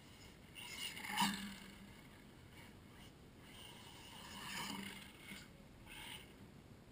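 Losi Mini 8ight radio-controlled buggy driving around the garden: faint motor and tyre noise that swells about a second in, sharpest just after, swells again in the middle and briefly near the end.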